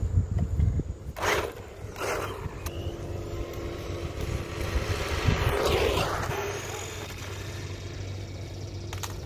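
Battery-powered RC monster truck driving along an asphalt path, its electric motor and knobby tyres swelling to a peak about five to six seconds in as it passes near the microphone, over a steady low rumble. Two short knocks come in the first couple of seconds.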